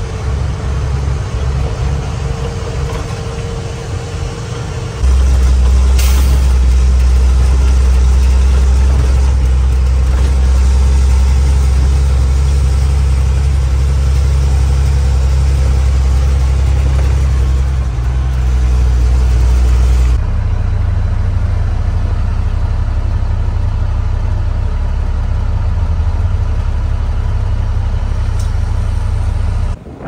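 Truck engine running steadily while driving, heard from inside the cab as a loud low drone. The engine note steps up sharply about five seconds in and shifts again about twenty seconds in.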